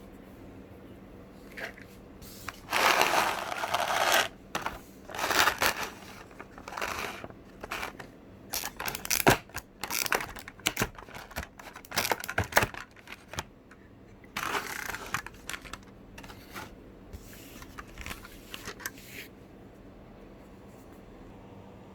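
Packaging being handled while a model car is unboxed: bursts of rustling and crinkling, with a run of sharp clicks and taps in the middle.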